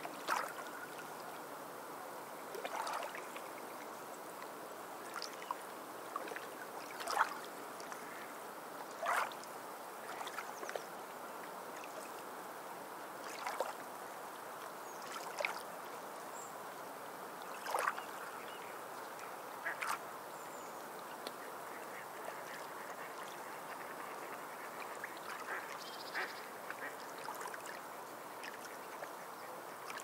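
Birds calling in short, separate calls every few seconds, over a steady wash of flowing water.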